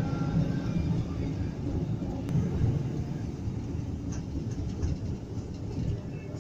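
Low, steady rumble of a moving vehicle heard from on board.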